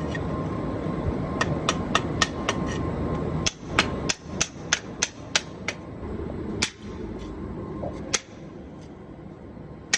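A hammer striking concrete over and over, about fifteen sharp blows at mostly two or three a second, stopping about eight seconds in: concrete being chipped off the edge of a manure cross gutter so the scraper no longer binds. A steady hum runs underneath.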